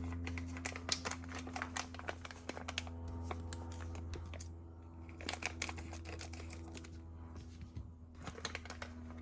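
Small RC crawler parts and their packaging clicking and rattling as they are handled, with rapid clicks for the first few seconds and scattered clusters after. A steady low hum runs underneath.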